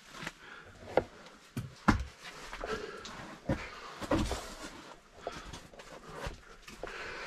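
Irregular knocks and scrapes of a caver's gloved hands, body and gear against rock while crawling through a tight passage, the sharpest knock a little before two seconds in.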